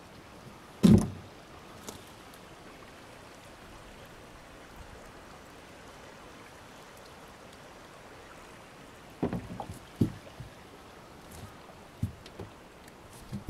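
Knocks and bumps in a small fishing boat drifting on a river: one loud thump about a second in, then a cluster of lighter knocks near the end, over a steady faint wash of moving water.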